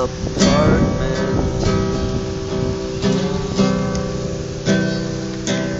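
Cutaway acoustic guitar strummed in chords, a fresh strum about once a second with each chord ringing on. A man's voice sings a drawn-out last word over the first second.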